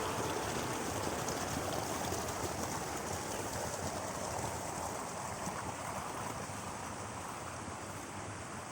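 Rushing river water, a steady even roar that slowly fades.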